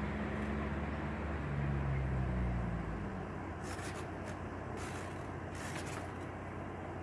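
Kool King window air conditioner running. A low hum cuts out a little under three seconds in, leaving a steady rush of air, and a few sharp clicks come midway.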